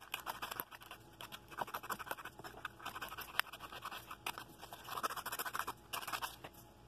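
Coarse 60-grit sandpaper rubbed by hand over the edges of a small wooden piece, a rapid, irregular scratching made of many short strokes, rounding off the sharp corners.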